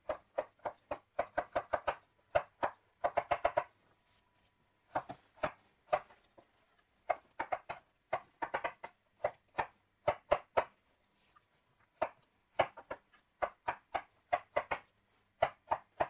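Chef's knife dicing peeled vegetables on a wooden cutting board: quick runs of sharp knocks as the blade strikes the board, several a second, broken by short pauses between runs.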